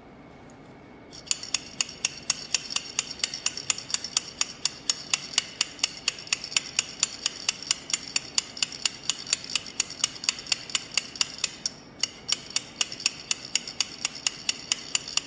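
Metal stirring rod worked up and down inside a stainless-steel calorimeter cup, clicking against the metal about four times a second from about a second in, with a brief pause near twelve seconds. This is the acid-base mixture being stirred while its temperature climbs to its maximum.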